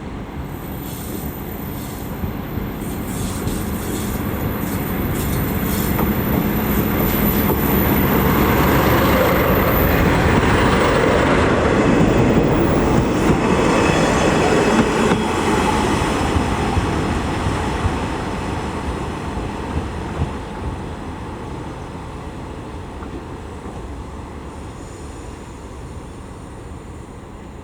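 A KiHa 120 diesel railcar running into a station and past at close range: engine and wheel noise swell to a peak midway and then fade as it draws away, with clicks of the wheels over rail joints early on and a thin high squeal in the first third.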